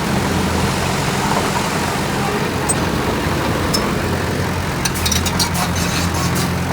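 Heavy machinery's diesel engine running steadily, with a few light clicks and rattles about five to six seconds in.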